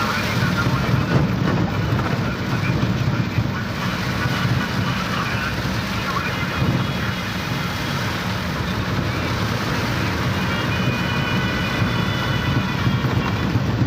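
Heavy rain falling: a steady, loud rush of noise with no let-up.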